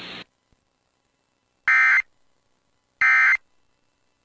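Emergency Alert System end-of-message data bursts: two short, loud, buzzy digital tones about a second and a quarter apart, the SAME 'NNNN' code that closes an EAS flash flood warning. A background hiss cuts off just before them.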